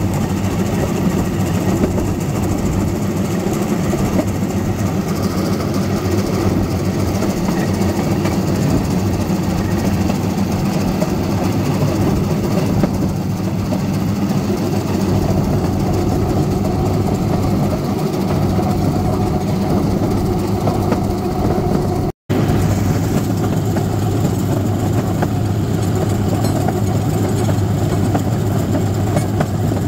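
Small engine of a motorized railcart running at a steady drone as the cart travels along the rails. The sound breaks off for a split second about two-thirds of the way through.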